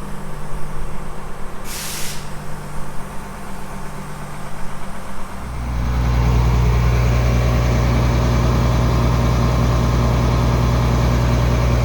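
Tractor engine running, with a short hiss of air about two seconds in. About halfway through, the engine speeds up and then runs steadily, much louder.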